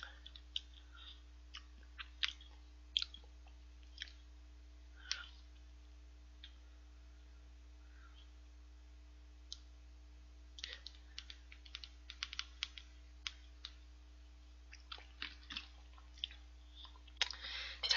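Quiet, scattered mouth clicks and smacks of chewing curry and rice close to a microphone, coming thickest between about ten and fourteen seconds in. A faint steady electrical hum sits underneath.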